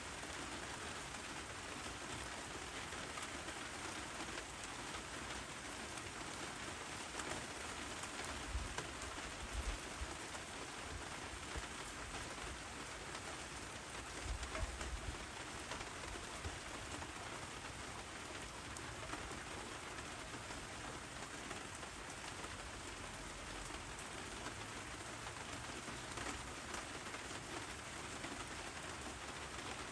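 Steady rain falling and pattering on surfaces, with a few low thuds about a third and halfway through.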